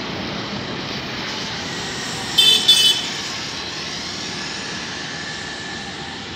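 Elevated metro train running along the viaduct overhead: a steady rumbling rush that slowly fades as it moves away. About two and a half seconds in, a horn sounds two short blasts in quick succession.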